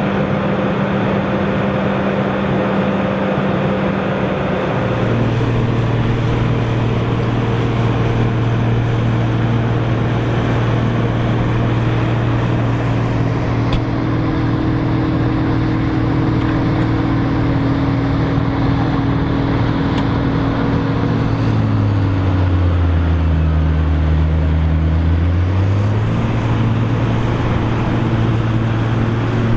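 Tractor diesel engine running hard at steady revs. The sound shifts about five seconds in. Near the end the engine's pitch sags for a few seconds, then climbs back, as when an engine is pulled down under heavy load.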